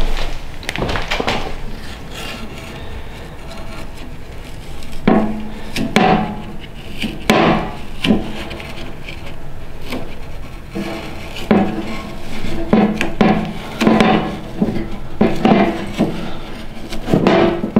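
Wood stove rope gasket being pressed by hand into the lid channel of a steel .50-cal ammo can: rubbing and handling noises on the metal lid, in uneven bursts about a second apart.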